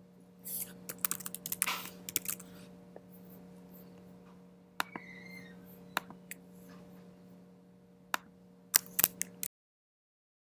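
Scattered clicks and clatter of objects being handled at a desk, over a steady electrical hum; a run of clicks comes near the end, and the sound cuts off abruptly about nine and a half seconds in as the recording stops.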